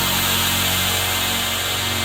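Ambient electronic background music: steady held tones under a bright, hiss-like wash.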